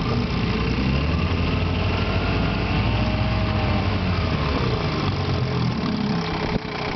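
1956 Evinrude Fleetwin 7.5 hp twin-cylinder two-stroke outboard running steadily in reverse gear. Near the end a sharp click and a brief drop in level. The motor is running low on power, and the owner has not yet found why.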